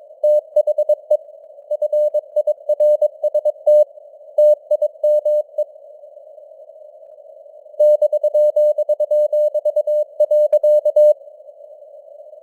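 Morse code sent at 22 words per minute: a single beep tone keyed on and off in quick dits and dahs over a narrow band of hiss, simulated radio noise. The keying pauses for about two seconds midway, then stops about a second before the end, leaving only the hiss.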